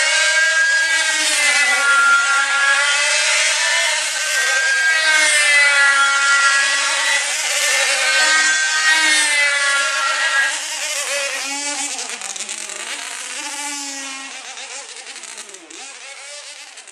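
Several small diesel model aircraft engines screaming at once as control-line combat models circle, their pitches swinging up and down as each plane passes. The sound weakens after about ten seconds and fades out near the end.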